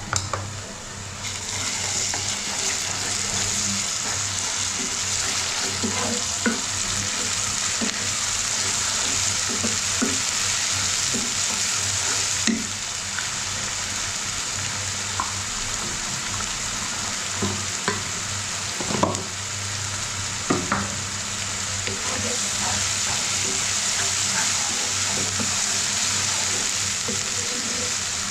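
Onions and ginger-garlic paste sizzling steadily in hot oil in a pan, being stirred, with a spatula now and then knocking and scraping against the pan.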